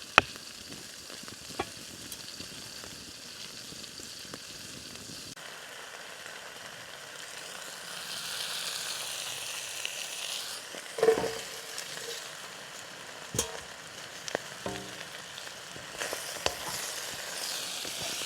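Food sizzling and frying in a pan over a campfire, a steady hiss that swells for a couple of seconds in the middle, with a few sharp knocks and clinks.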